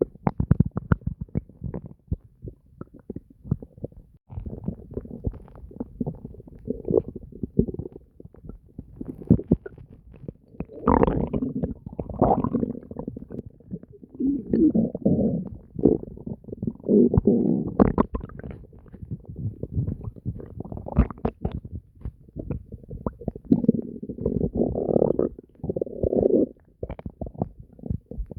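Human stomach gurgling and growling without a break, full of small bubbling pops, swelling into louder rumbles several times in the second half.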